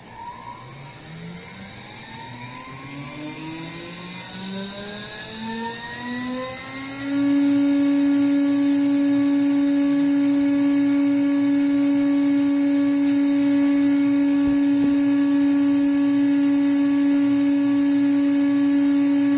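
CNC router spindle motor spinning up: a whine rising in pitch for about seven seconds, then holding steady at full speed as the spindle's RPM stabilises during a 25-second start delay before cutting.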